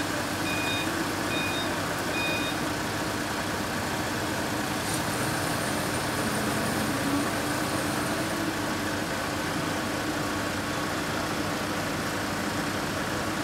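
Large TCM forklift's engine running steadily as it manoeuvres, its reversing alarm beeping several times in the first two or three seconds.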